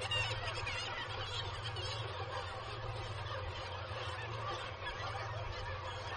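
Black-legged kittiwake colony calling, many birds overlapping in a continuous din, over a steady low hum.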